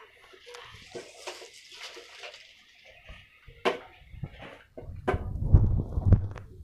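A plastic shopping bag rustling and crinkling as it is rummaged through, with a sharp click a little past halfway. In the last two seconds loud close bumps and knocks drown it out.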